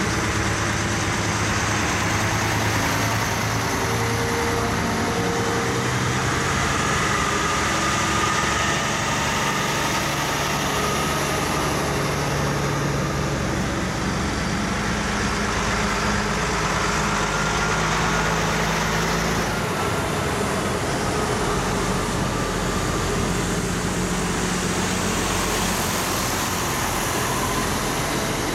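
Convoy of heavy diesel trucks driving past one after another, their engines running steadily at low road speed, one engine note giving way to the next as each truck passes.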